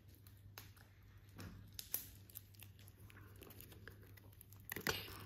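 Cellophane shrink wrap on a small card deck crinkling and crackling as fingers pick at it to tear it open, in scattered small crackles, louder about two seconds in and again near the end.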